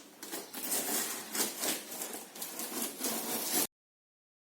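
Cardboard packaging rustling and scraping with small knocks as a large speaker box is opened and handled. The sound cuts off abruptly near the end.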